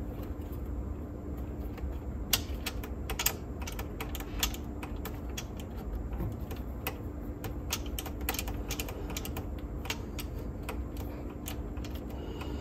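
Irregular small clicks and taps of hands working the cassette door and tape transport mechanism of a Victor TD-V721 cassette deck, trying to open the door. The door won't open, which the restorer puts down to the tape transport sitting in the wrong position.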